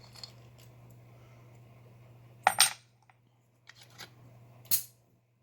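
Small metal clicks and taps from a shim being worked into a padlock, with two sharp clicks about two and a half seconds in, a few lighter ticks, and another sharp click near the end.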